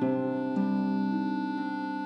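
Instrumental background music: sustained, held notes that change about every half second.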